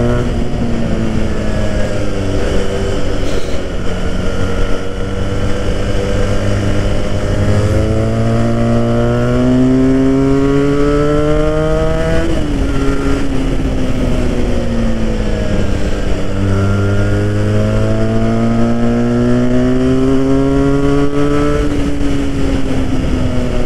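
Benelli 302R's parallel-twin engine pulling through the gears on a winding road, its pitch rising steadily, dropping sharply about halfway, sinking, then rising again and dropping near the end. Wind rushes over the microphone throughout.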